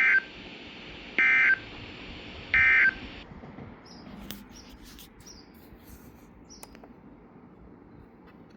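NOAA Weather Radio sending the EAS end-of-message code: three short, loud, buzzing data bursts about 1.3 s apart over radio hiss, which marks the end of the alert. The hiss cuts off about three seconds in as the transmission drops, leaving faint high chirps and a few clicks.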